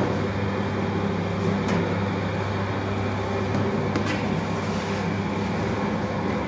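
Steady low hum of bakery machinery running, with a couple of faint light clicks.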